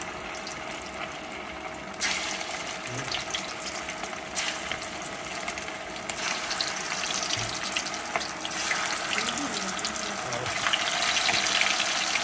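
Chicken meatballs deep-frying in a pot of hot oil: a steady crackling sizzle that steps up louder several times as more balls are dropped into the oil.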